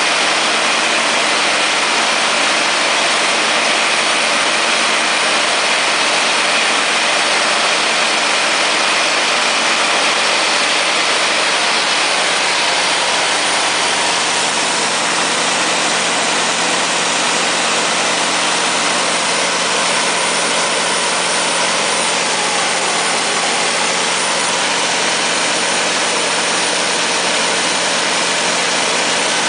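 Kohler 105 kW standby diesel generator set running steadily at constant speed, driven by its John Deere 6068 six-cylinder diesel engine. A steady, unchanging engine drone with a lot of hiss over it.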